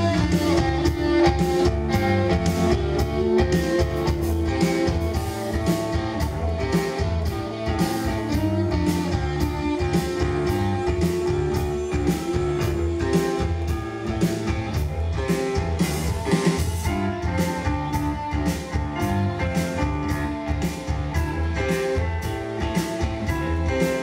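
Live indie rock band playing: electric guitar, drum kit and keyboard over a steady beat.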